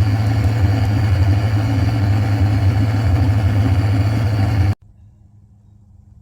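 An engine running steadily at a constant speed, cutting off abruptly just under five seconds in.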